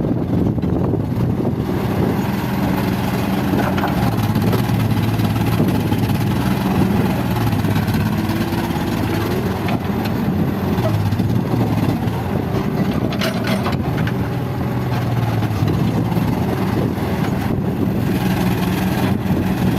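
Diesel engine of heavy earthmoving equipment running steadily, its pitch drifting up and down as the load changes, with a brief clatter of knocks about thirteen seconds in.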